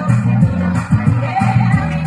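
Dance music playing loudly, with a heavy bass line and a steady beat.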